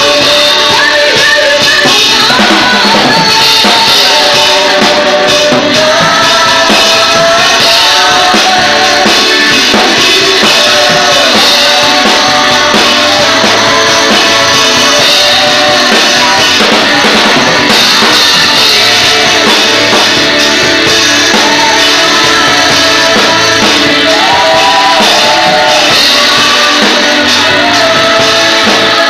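A woman singing a praise song into a microphone over loud backing music with drums.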